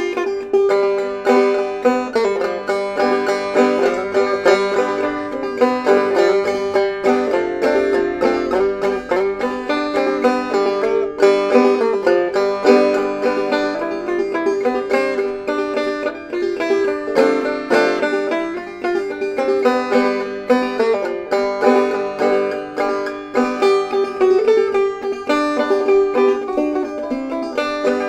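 Banjo played clawhammer style: a brisk, continuous stream of plucked notes over a steady drone note, in old-time style.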